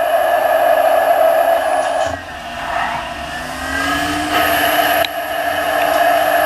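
CNC lathe running with a steady mechanical whine. About two seconds in the whine drops away and a lower tone rises in pitch, and the steady whine comes back sharply about five seconds in.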